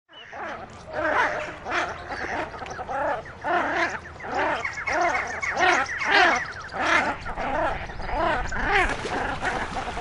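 Several shelducks squabbling: a continuous run of overlapping calls, each arching up and then down in pitch, about two a second.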